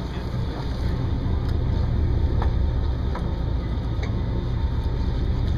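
Boat's motor running with a steady low rumble, mixed with wind and water noise.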